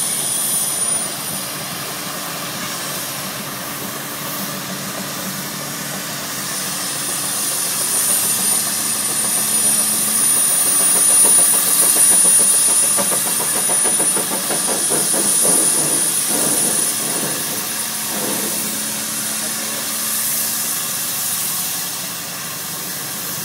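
Case steam traction engine running under load as it drives up a steep dirt pile, with steam hissing; it grows louder partway through the climb and eases off near the end.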